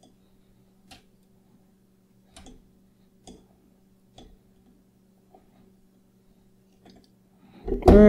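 Faint, sharp clicks of a multitool's plier jaws working the wire stripper on a length of wire, about one a second and unevenly spaced, over a low steady hum. A man's voice cuts in loudly right at the end.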